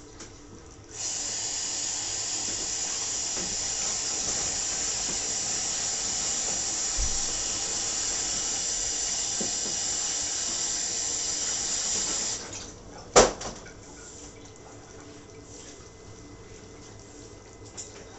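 Water running from a kitchen tap into a sink, a steady hiss that starts about a second in and is shut off after about eleven seconds. A second or so later comes one sharp knock, the loudest sound here.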